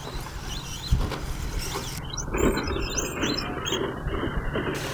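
Electric RC short course trucks running on a dirt track, their 13.5-turn brushless motors whining and rising and falling in pitch as they accelerate and slow, with a low rumble underneath and a single thump about a second in.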